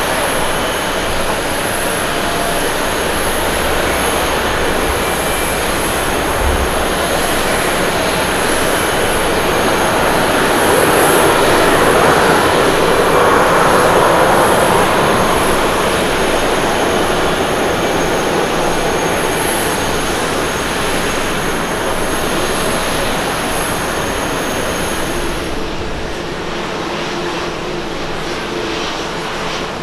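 Boeing 777 jet airliner taxiing past with its engines at low thrust: a steady jet-engine rush with a thin high whine on top, swelling to its loudest about halfway through as it comes closest. Near the end the sound switches abruptly to a quieter jet-engine hum from a Boeing 787-9, without the high whine.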